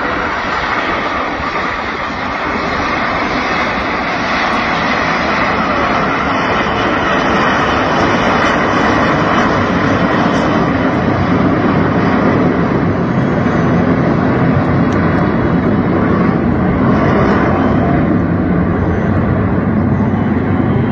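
Loud, steady rushing jet noise from a formation of Aermacchi MB-339 jet trainers flying overhead. It builds over the first several seconds and grows deeper in the later part.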